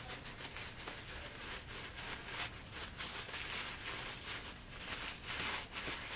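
Paper towel rustling as it is patted again and again along a 3D-printed plastic axe handle, soft dabs a few times a second.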